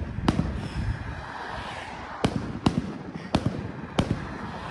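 Firecrackers going off in scattered single bangs, about five sharp cracks in a few seconds. Under them is a steady rush of wind and road-bike tyre noise.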